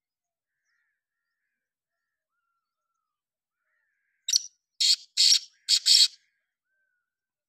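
Male black francolin (kala titar) calling: a run of four harsh, grating notes over about two seconds, starting about four seconds in.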